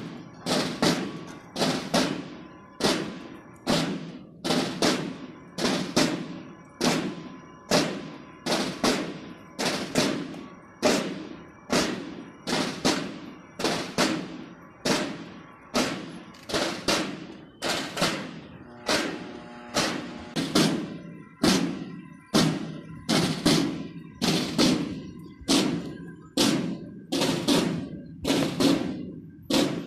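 Ceremonial drums beating a steady march cadence, about one and a half strokes a second, for a flag hoisting. Faint steady tones sound behind the drumming in the second half.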